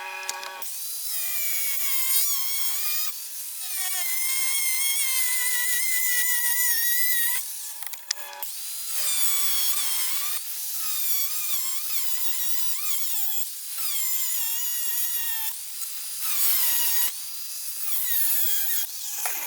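Hand-held power tool, likely an angle grinder, cutting steel angle iron in several passes. Its high whine sags and recovers as it bites, with short stops between passes.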